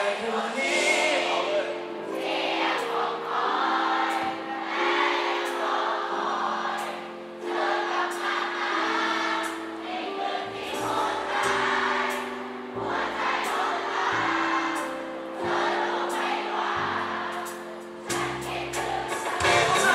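A concert crowd singing along in chorus, phrase by phrase, over a live band's held guitar chords and bass. The bass notes grow stronger about halfway through.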